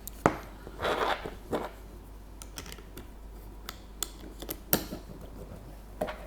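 Irregular sharp plastic clicks and light handling scrapes from a self-feeding soldering iron's solder feed mechanism, pushed again and again to drive solder wire through its feed tube.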